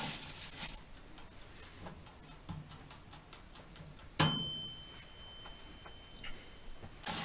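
Dry fermented fireweed tea leaves rustling as a hand stirs them, at the start and again near the end, with faint light ticks between. About four seconds in comes a single sharp metallic clink that rings high and fades over a couple of seconds.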